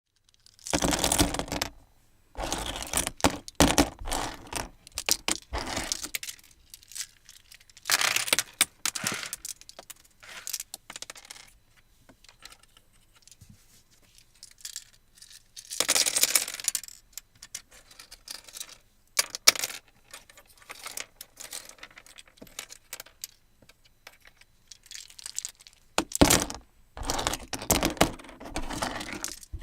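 Coins being flipped and clinking, in repeated bursts of rapid metallic clicks and jingles lasting a second or two each, separated by pauses.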